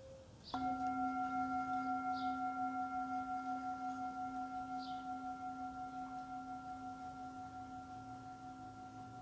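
A singing bowl struck once, ringing with several steady tones that fade slowly with a regular wobble.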